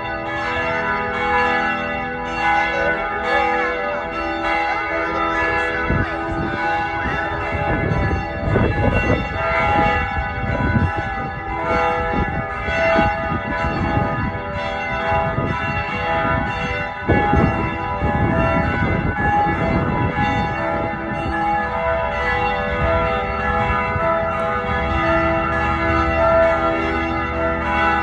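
Church bells ringing continuously, fresh strokes about twice a second layering over the ringing of earlier ones. A low rumble swells under them through the middle stretch.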